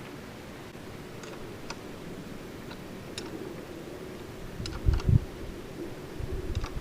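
Scattered light clicks and taps from handling motorcycle handlebars and hand tools, with two dull thumps about five seconds in.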